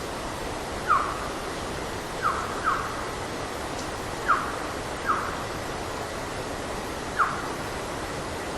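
Six short whistles, each a quick downward slide in pitch, at irregular intervals over a steady background hiss. A forest whistle recording that the recordist cannot match to any bird or mammal.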